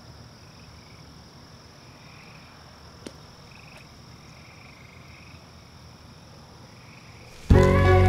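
Faint nature ambience of calling insects and frogs: a steady high trill with softer calls pulsing over it, and a single sharp click about three seconds in. Near the end, music comes in suddenly and loudly.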